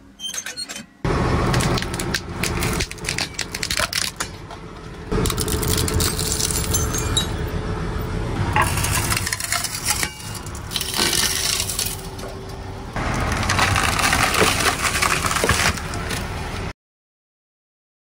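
A steel train wheel rolling over objects laid on the rail and crushing them, with cracking and breaking, in several short segments that change abruptly. Near the end it cuts to near silence.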